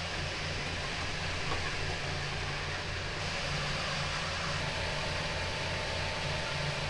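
Steady whir of a broiler barn's ventilation fans with a low electrical hum underneath.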